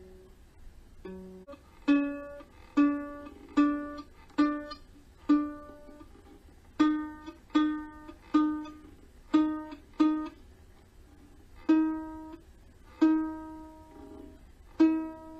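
Single string of a Kala Ukadelic soprano ukulele, most likely the E string, plucked over and over, about a dozen times at uneven gaps, each note left to ring and fade. The string is being tuned and is still off pitch.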